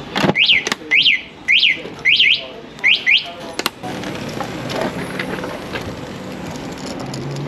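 A run of about seven sharp, high chirps over the first three seconds, each sweeping up and straight back down, some in quick pairs. From about four seconds in the Eskuta SX-250 electric moped pulls away: a low, steady hub-motor hum under tyre and wind noise.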